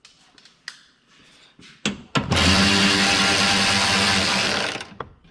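Cordless electric ratchet with a 10 mm socket running steadily for nearly three seconds, driving a bolt in, with a brief blip just before. A few light clicks come first as the socket is fitted.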